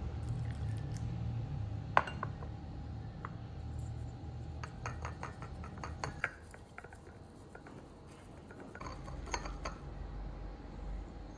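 Glass and porcelain clinking while water is poured onto matcha powder in a teacup and a bamboo tea whisk (chasen) works in the cup: one sharp clink about two seconds in, then clusters of light taps around five to six seconds and again near nine to ten seconds.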